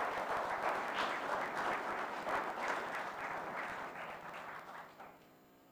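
Audience applauding, many hands clapping together, stopping fairly suddenly about five seconds in.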